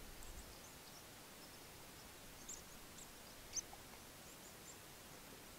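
Near silence in the open air, broken by a few faint, short, high bird chirps between about two and a half and three and a half seconds in.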